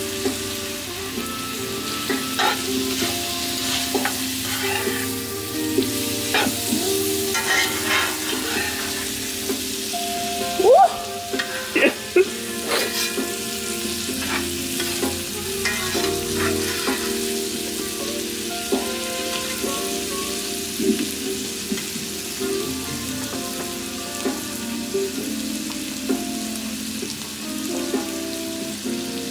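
Diced onions frying and sizzling in a cast-iron skillet, stirred with a metal slotted spatula. The spatula scrapes and clicks against the pan again and again, loudest about eleven and twelve seconds in.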